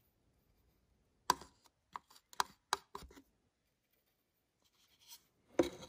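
A quick run of six or seven light taps, a paintbrush dabbing stain onto a hard plaster model street, then a louder clatter near the end as a plastic water cup is handled.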